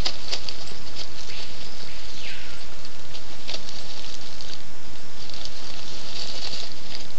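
South American coatis foraging on the forest floor: their feet and snouts rustle, scratch and crackle through dry leaf litter and palm fronds in irregular bursts, over a steady background hiss. A single short falling whistle sounds about two seconds in.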